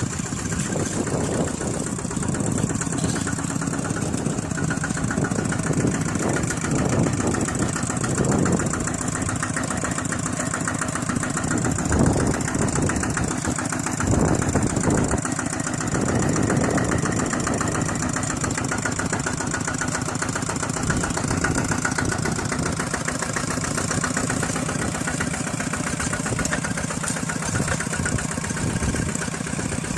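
Engine running steadily with a fast, even chugging beat. It grows louder and rougher from about 6 to 17 seconds in.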